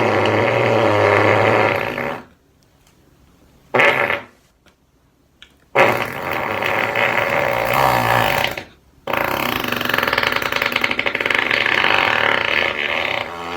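Fart sound effects: a series of long, buzzing farts. One trails off about two seconds in, a short one comes around four seconds in, then two long ones of about three and five seconds follow.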